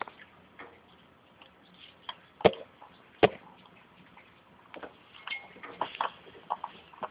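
Scattered light clicks and taps, with two sharper knocks about two and a half and three and a quarter seconds in, then a quicker run of small clicks near the end.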